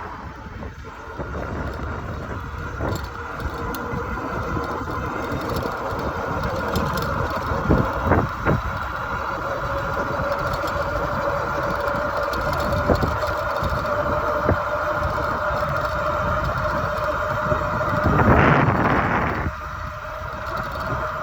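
Electric bike's motor whining steadily under full power as the bike accelerates toward 30 mph, the whine creeping up in pitch and level, over road rumble and wind noise on the microphone. A few knocks about eight seconds in, and a louder rush of noise near the end.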